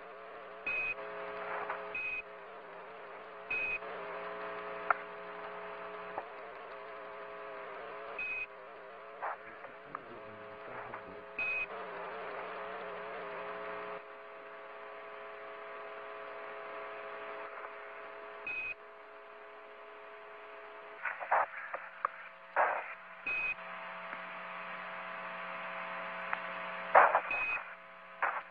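Radio-link audio: a steady hiss and hum with steady tones, broken by about eight short high beeps and a few louder crackling bursts near the end.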